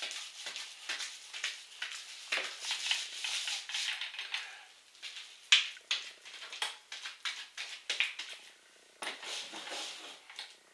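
Applicator working wet RedGard waterproofing membrane into the corners of cement board: a scrubbing, rubbing sound for the first few seconds, then scattered clicks and taps.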